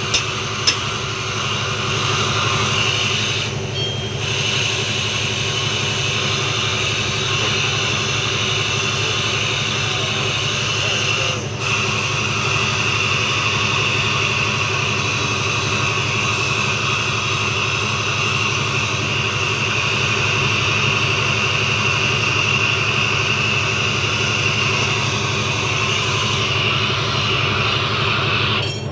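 A machine running steadily with a constant low hum and an even hiss, broken only by brief dips; a sharp knock sounds right at the start.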